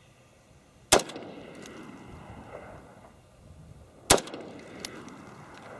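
Two shots from a .223 AR-15 rifle fired semi-automatically, about three seconds apart, each a sharp crack followed by a rolling echo.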